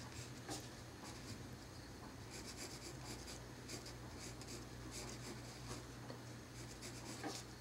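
Pencil scratching lightly on paper in short strokes, sketching the edges of feathers, over a steady low hum.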